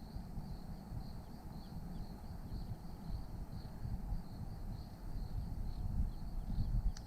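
Wind rumbling on the microphone outdoors, with a faint high chirp repeating evenly about three times a second.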